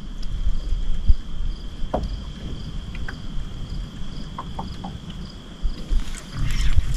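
Insects chirping in a steady high trill with a faint regular pulse, over a low rumble of wind and water and a few small clicks. Near the end a louder jumble of knocks and clatter starts as a bass is hooked on the rod.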